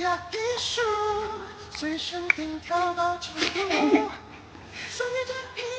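Background music: a song sung by a high female voice in held, stepping notes.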